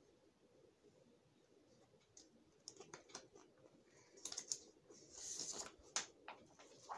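Faint handling sounds of a plastic folder: scattered light clicks and taps, with a short rustle of paper about five seconds in as a sheet is pulled out, and a sharp click just after.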